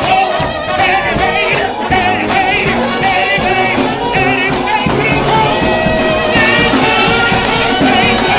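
Trombone shout band playing a gospel hymn: a lead horn carries the tune with a wide, wavering vibrato over the full brass section and drums.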